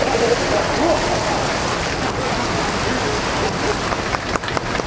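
Heavy rain falling steadily, a loud even hiss, with a few sharp ticks near the end.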